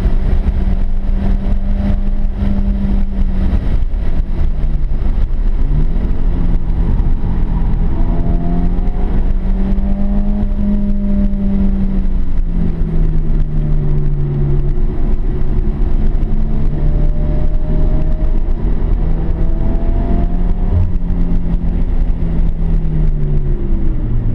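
Subaru Impreza's flat-four engine heard from inside the cabin at track speed, its note rising and falling over a heavy low rumble of road and wind noise. Near the end the engine note drops lower.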